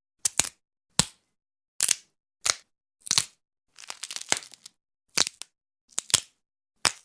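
A series of sharp cracks, about ten at irregular spacing with dead silence between them, and a short run of crackling just after the middle.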